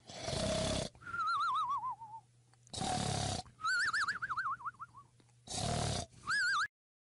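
Cartoon snoring sound effect: three snores, each followed by a high warbling whistle. The first two whistles slide down in pitch, and the last one is cut off suddenly.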